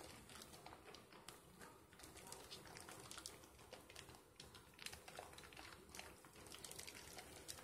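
Faint wet squishing and crackling of thick soap lather being worked between the hands, made up of many small irregular clicks and pops.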